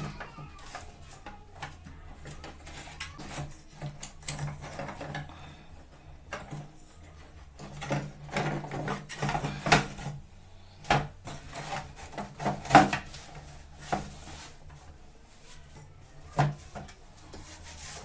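Irregular rubbing, scraping and clicking as hands reassemble parts of a twin-tub washing machine, reattaching the drain-valve cable. A few sharper knocks stand out, over a faint low steady hum.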